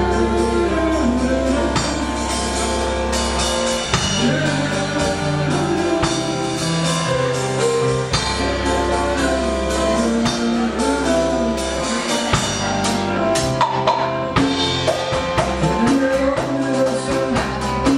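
Music with a drum kit keeping a steady beat over a sustained bass line and melody.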